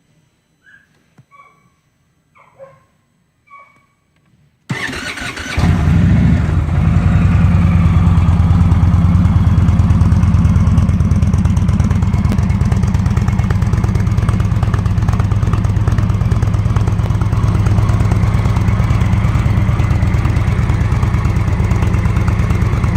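A few faint short chirps. Then, about five seconds in, the 2015 Indian Chieftain's 111 cubic inch Thunderstroke V-twin engine cranks on the starter for under a second, catches and settles into a steady idle.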